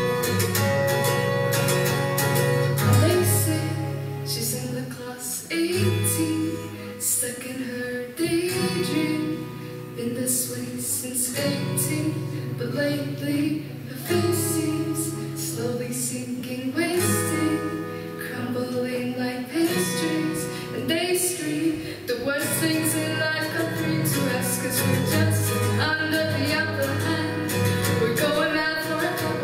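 A woman singing a slow song to her own acoustic guitar.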